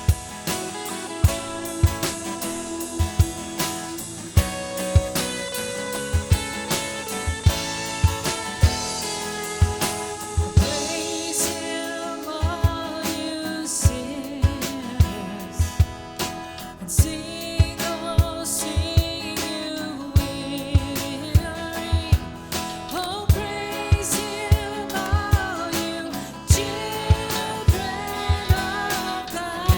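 Worship band playing, with a drum kit keeping a steady beat under guitar and other instruments, and sung melody lines coming in about midway.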